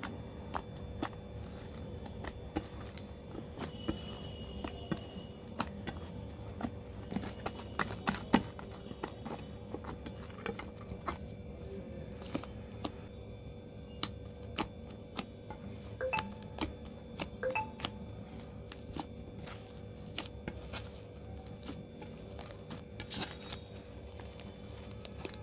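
Sticky slime being kneaded, pressed and stretched by hand, giving many small sharp clicks and pops as air pockets in it burst, scattered irregularly through the kneading.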